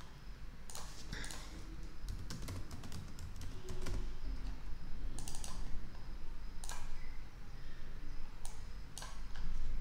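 Typing on a computer keyboard: irregular key clicks in short runs.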